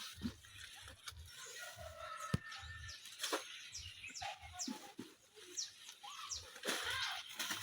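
Small birds chirping, with many short, falling high-pitched calls, and a few sharp clicks or knocks, the clearest about two and a half seconds in.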